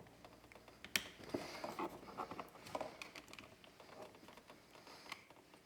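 Faint plastic clicks and light rattling as wiring harness connectors are unclipped and pulled from a car door's power window switch panel, with one sharper click about a second in.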